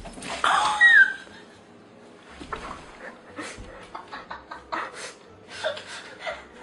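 A cat's loud, pitch-gliding yowl about half a second in, followed by a string of short, sharp sounds.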